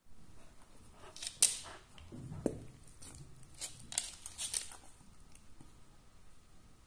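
A corgi's claws clicking and tapping on a wooden floor as it shifts about: a few sharp, irregular clicks, the loudest about a second and a half in, then fading to faint room tone.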